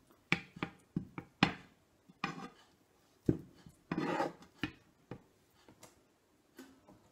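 A black plastic spoon and braised lamb shanks knocking and scraping against a nonstick frying pan as the shanks are put back into the sauce: a string of irregular clicks, knocks and short scrapes.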